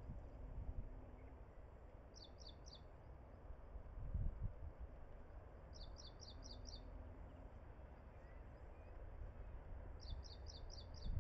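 A bird calling in three short trills of quick, high, falling chirps, each trill about a second long and some four seconds apart. A low rumble runs underneath and swells briefly about four seconds in.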